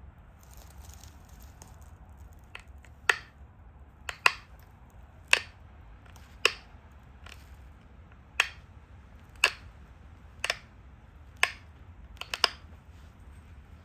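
Pressure flaking a stone Dalton point: about ten sharp snaps, roughly one a second, starting about three seconds in, as flakes pop off the edge while the shoulder is being taken down.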